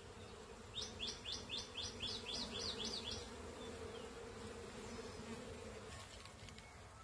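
Honeybees buzzing steadily around an opened hive. From about a second in, a bird calls over them for about two seconds: a quick run of about ten short falling notes.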